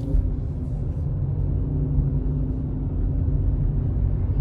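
Car engine running with a heavy low rumble and a steady engine note.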